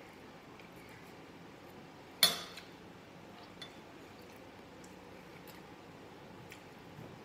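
A metal spoon clinks once sharply against a glass dish about two seconds in, ringing briefly, with a faint tick a little over a second later; otherwise low room tone.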